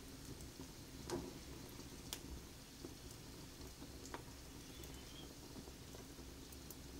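Faint wood fire in an open fireplace crackling, with a few sparse small pops over a low background hiss.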